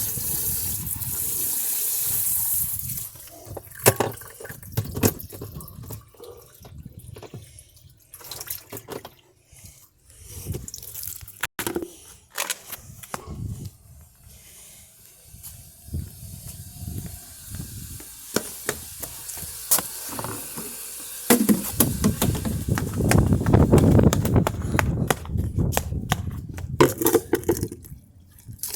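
Water hissing and splashing out of a leaking dishwasher, with scattered knocks and clatter. A louder stretch of rushing water comes in about three quarters of the way through.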